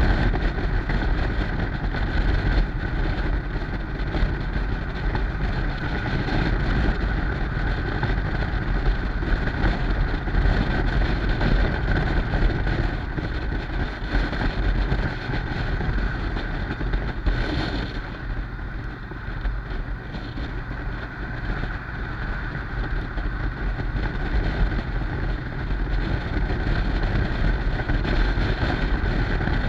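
Wind buffeting the microphone while riding a Yamaha Stryker, a V-twin cruiser motorcycle, with a steady low rumble underneath. The noise eases a little about two-thirds of the way through, then picks back up.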